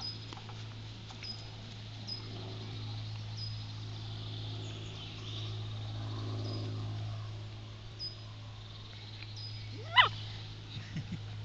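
A Dalmatian puppy gives one short, high yelp that sweeps sharply upward about ten seconds in, followed by a few softer squeaks.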